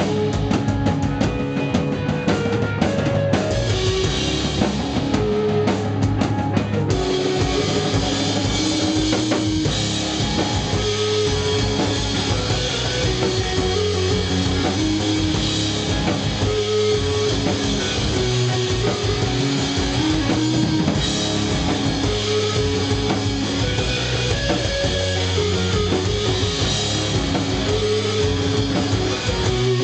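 Instrumental rock band playing loudly: electric guitar and bass notes over a driving drum kit, the drumming densest for the first seven seconds or so.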